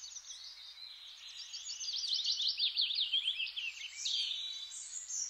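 Birds chirping: many quick, high-pitched chirps that build up after about a second and come thickest in the middle, with a few longer high notes near the end, over a faint hiss.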